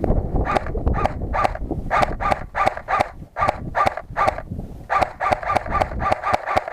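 Footsteps crunching on loose ground in a steady series, speeding up to a quicker pace about five seconds in, over low wind rumble on the microphone.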